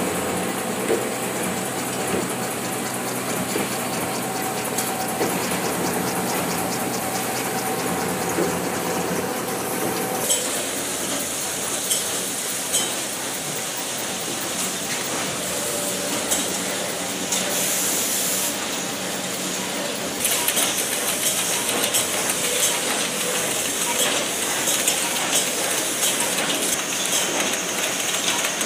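Tissue paper folding and converting machine line running: a steady mechanical clatter with fast, regular ticking. The sound changes abruptly about ten seconds in and gets louder about twenty seconds in.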